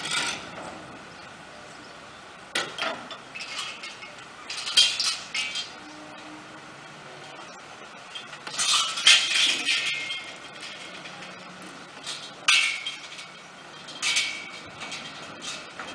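Cars driving off a river vehicle ferry over its steel ramp: sharp metallic clanks and rattles every few seconds, with a longer clattering run about nine seconds in, over a low steady background hum.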